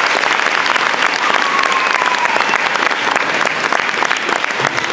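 Audience applauding: dense, steady clapping from a crowd in a gym.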